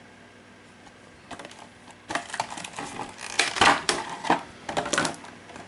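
Hands handling board-game cards and their packaging on a tabletop: a run of irregular clicks, taps and rustles that begins about a second in and grows busier and louder toward the middle.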